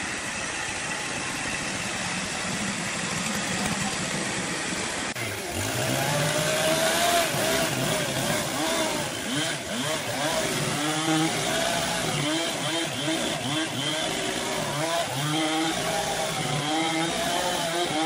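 Steady machinery noise for about five seconds, then a Husqvarna two-stroke chainsaw starts revving and cutting into a large log, its engine pitch rising and falling repeatedly under load.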